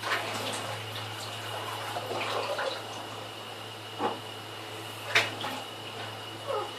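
Dishes being washed at a kitchen sink: water running steadily, with a few sharp knocks of dishes against each other or the sink, the loudest about five seconds in.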